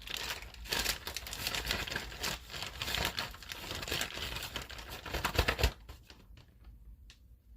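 Plastic zip-top bag crinkling and rustling as flour-coated chicken pieces are handled inside it. It stops suddenly about six seconds in, leaving a few faint ticks.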